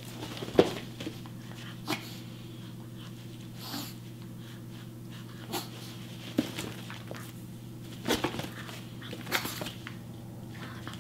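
Yorkshire terrier puppy playing with a plush toy: scattered short scuffles and noises from the dog at irregular moments, over a steady low electrical hum.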